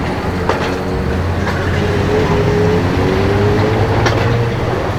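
Car engine running steadily at low revs, its tone sagging slightly and then rising again near the end, with a few light clicks.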